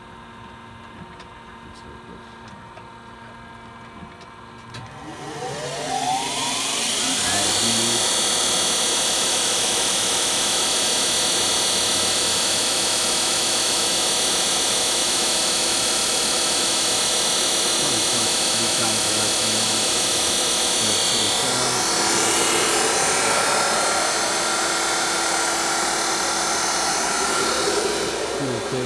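Heald 273A grinder running with a low hum, then, about five seconds in, its high-speed internal grinding spindle spins up with a rising whine and runs on at speed with a loud steady high-pitched whine and hiss.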